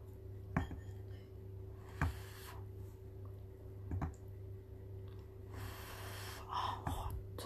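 Wooden chopsticks tapping and clicking against a plate as they pick through cheesy chicken and rice, four sharp taps about two seconds apart, with soft rustles of food between them. A steady low hum runs underneath.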